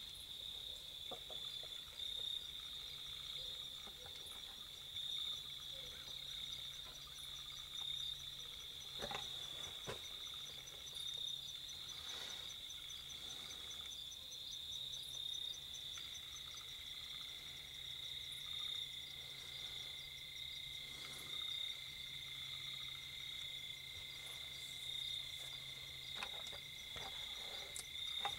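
Dusk chorus of insects calling: a steady high-pitched trill throughout, a fast even pulsing above it, and a second, lower trill joining about halfway through. A few faint clicks break in here and there.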